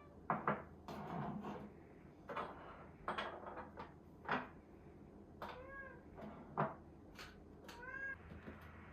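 A domestic cat meowing twice, each call rising and falling in pitch, about five and a half and eight seconds in. Before that, a series of sharp knocks and taps.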